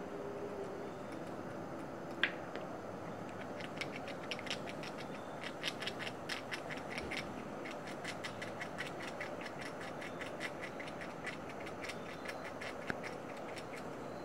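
Gray squirrel gnawing on food held in its paws: rapid, irregular crisp clicks, several a second, starting a few seconds in and going on throughout, over a steady background hiss.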